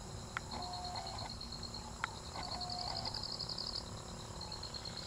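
Insects, crickets, trilling in fast, even pulses with a high pitch, quickening for a second or so near the middle. Twice, about half a second and two seconds in, a sharp click is followed by a short, flat, lower call.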